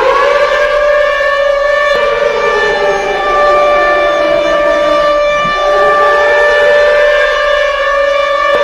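Ice-hockey goal horn of the siren type, just wound up and holding one loud, steady tone. A fainter lower tone sinks and then rises again about midway.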